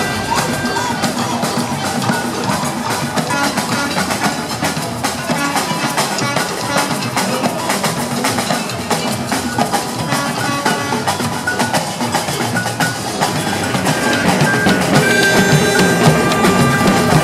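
Samba bateria drumming: Brazilian percussion, with big surdo bass drums, playing a dense, driving samba rhythm. It gets louder near the end.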